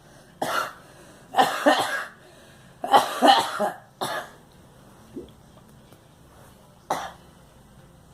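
A girl coughing in fits: several bouts of quick coughs in the first four seconds, then a lone cough near the end.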